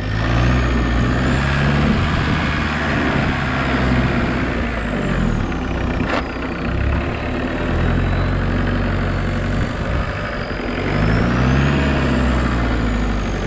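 Homemade 4x4 tractor's engine running as the tractor drives, its speed rising and falling a few times, with a thin high whine that rises and falls too. One sharp knock comes about six seconds in.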